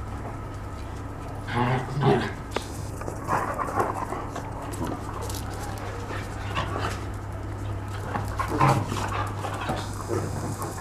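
A dog whining and panting in short bursts, about four times, over a steady low hum.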